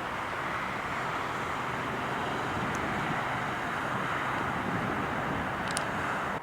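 Steady rushing jet-engine noise from a Southwest Airlines Boeing 737-700 with CFM56-7B turbofans.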